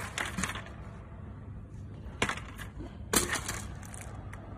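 Waste circuit boards and loose electronic components clattering against hard surfaces in three short rattling bursts: just after the start, about two seconds in, and about three seconds in. Under them runs the steady low running noise of a PCB dismantling machine.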